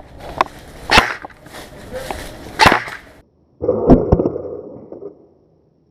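Sharp single cracks of airsoft guns firing, three spaced shots over the first three seconds. After a brief dropout comes a muffled stretch with two more quick cracks, which then fades out.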